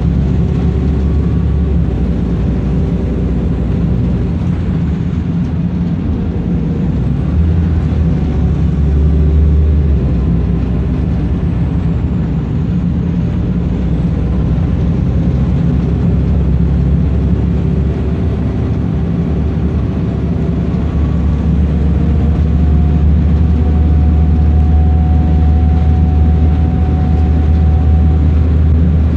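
Wright Eclipse bus heard from inside the passenger cabin while under way: a steady low engine drone with road and tyre noise. The low rumble swells twice, and a faint whine climbs slowly near the end as the drone grows louder.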